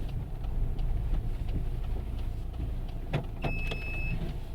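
Car in motion heard from inside the cabin: a steady low rumble of engine and road, with a few sharp clicks or knocks a little after three seconds in and a brief high beep lasting under a second.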